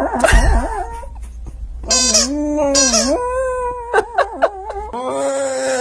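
A dog howling in a string of drawn-out, wavering notes of about a second each, with short breaks between them.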